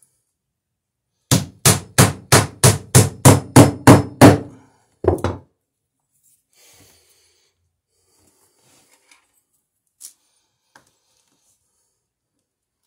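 Claw hammer driving a nail into a wooden plank: ten quick, evenly spaced blows, about three a second, getting louder as the nail goes home, then one more knock about a second later. The nail pins the glued scarf joint of a dory's garboard plank.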